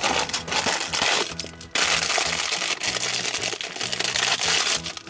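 Hands crinkling and tearing open a black plastic wrapper around a small toy figure, with cardboard packaging rustling; the crinkling gets louder and denser from a little under two seconds in.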